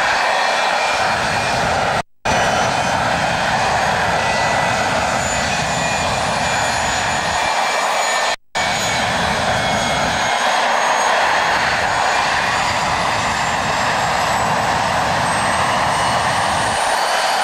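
Rolls-Royce Avon turbojet of a BAC Lightning F.6 running steadily on the ground, a loud even jet roar with several high-pitched whines over it. Only one of the two engines is running and there is no afterburner lit. The sound cuts out for a split second twice.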